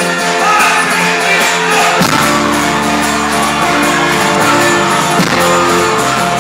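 Folk-rock band playing live music with guitar and voices. A deep bass part comes in about two seconds in.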